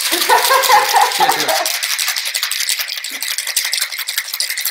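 Ice cubes rattling fast and hard inside a stainless steel cobbler cocktail shaker, shaken violently to chill and aerate the drink.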